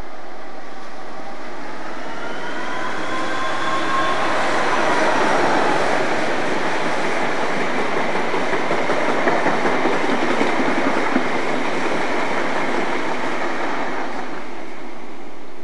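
Diesel locomotive hauling a passenger train passes at speed. The engine's note drops in pitch as it goes by about four seconds in. The coaches follow with a steady rush and wheel clicks, which fade near the end.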